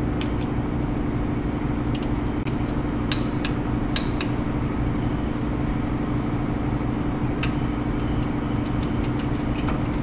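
Scattered sharp metal clicks of a ratchet and click-type torque wrench as the disc brake caliper bracket bolts are brought to torque, several close together near the end, over a steady low hum.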